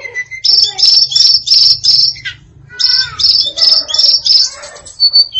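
Female tledekan singing a varied song: runs of short, high, rapidly repeated notes at about three a second, with a brief pause just over two seconds in before another run.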